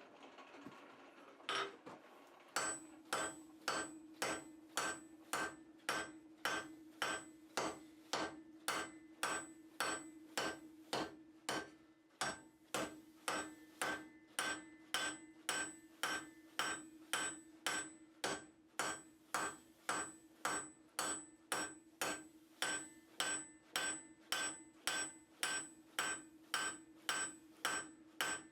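Hand hammer striking steel on an anvil in a steady rhythm of nearly two blows a second, starting about two seconds in, with a brief pause near the middle. A ringing tone carries on between the blows.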